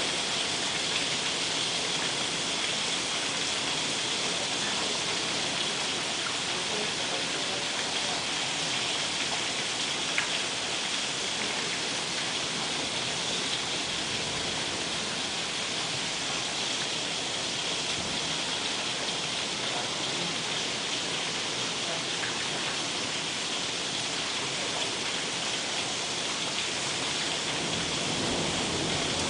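Rain falling steadily: an even, dense hiss, with one sharp tick about ten seconds in.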